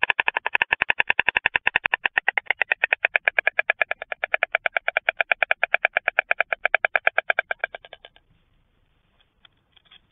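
White stork bill-clattering: a loud, fast, even run of wooden clacks, about ten a second, that stops abruptly about eight seconds in, followed by a few faint clacks near the end.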